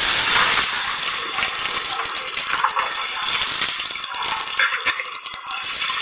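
Fire extinguisher discharging onto a burning microwave oven: a loud, steady hiss that starts suddenly and keeps going.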